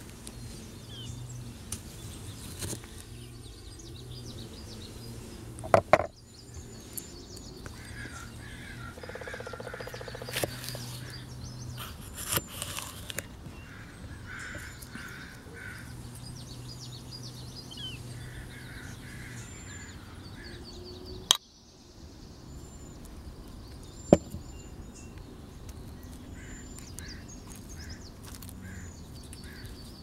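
Food prep on a wooden cutting board: a folding knife slicing tomato and knocking on the board, with three sharp knocks. Birds chirp and crows caw repeatedly in the background.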